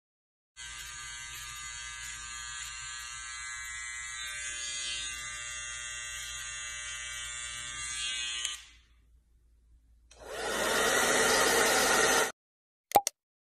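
Cordless hair trimmer buzzing steadily for about eight seconds, then stopping. After a short pause comes a louder hiss lasting about two seconds, followed by a couple of sharp clicks near the end.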